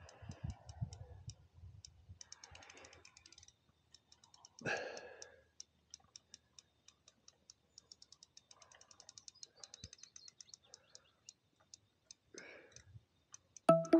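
Large carp spinning reel clicking in a fast run of faint ticks as a hooked fish is played, the ticks coming closer together around the middle. A brief rustle of noise about five seconds in and another near the end.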